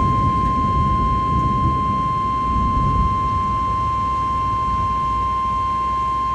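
NOAA Weather Radio 1050 Hz warning alarm tone from a weather radio receiver: one steady, unbroken tone over a low background rumble, the alert that comes before the Required Weekly Test message.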